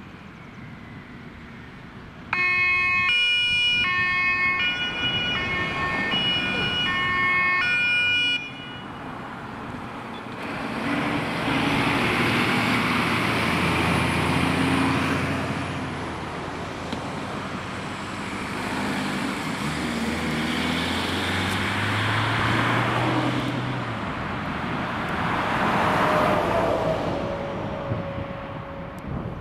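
German two-tone siren sounding alternating high and low notes for about six seconds, then cutting off abruptly. Fire engines' diesel engines then accelerate past with tyre noise, loudest about halfway through and again near the end.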